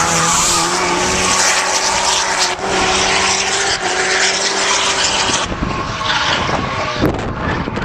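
Drift car passing close while sliding: engine held at a steady pitch under throttle, over a wide tyre-squeal hiss. The engine note and tyre noise drop away about five seconds in as the car pulls off.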